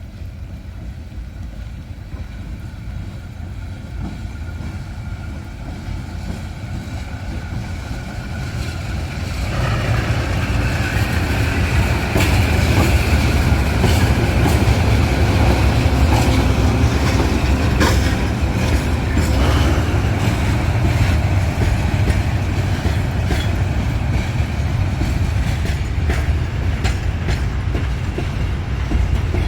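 A pair of GE U10B diesel locomotives working up a grade: a heavy engine rumble that grows louder until about ten seconds in as they draw near, then holds strong. Later come scattered sharp clicks of wheels over the rails.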